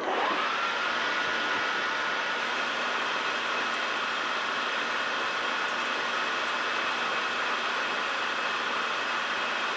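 Metal lathe turning a bar with a carbide insert tool taking a 0.050-inch (1.23 mm) cut and breaking its chips. A machine whine rises in pitch in the first moment and then holds steady over an even cutting hiss.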